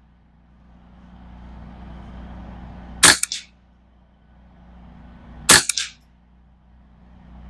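Two shots from a Ruger 10/22 .22 LR rifle, about two and a half seconds apart. Each is a sharp crack with a brief echo.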